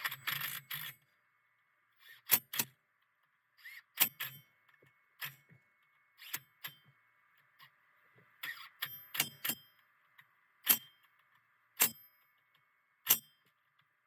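Sharp metallic clicks and clinks from hand tools on metal, about a dozen single strikes, some in quick pairs, settling into an even beat of roughly one a second near the end, over a faint steady hum.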